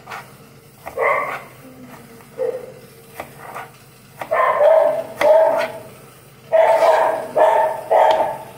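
Dog barking: a run of about seven short, pitched barks, most of them in the second half. The dog is unhappy.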